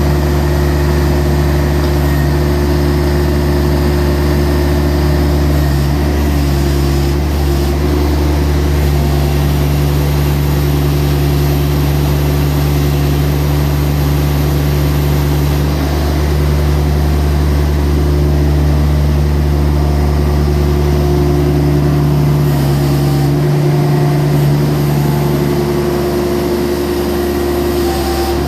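John Deere X495 garden tractor's three-cylinder diesel engine running steadily, with several steady low tones. Near the end one of the tones drops away.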